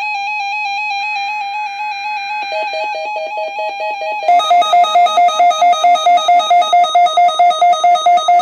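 Weather radio receiver sounding its weekly-test alert: electronic warbling tones with a raspy data-burst screech. From about four seconds in comes a loud pulsing alarm that beeps about three times a second.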